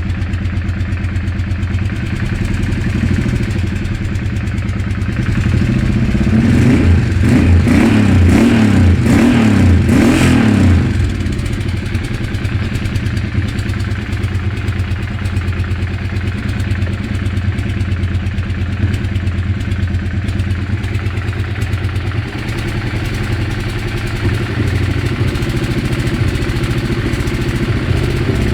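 An engine running steadily, the sound its owner calls weird, revved up and down in several quick blips between about six and eleven seconds in before settling back to a steady idle.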